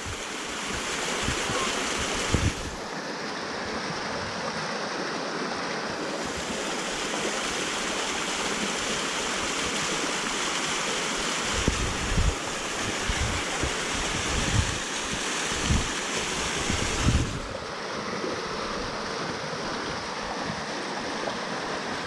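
Small waterfall cascading over rock: a steady rush of water. About halfway through, wind buffets the microphone in low gusts for several seconds.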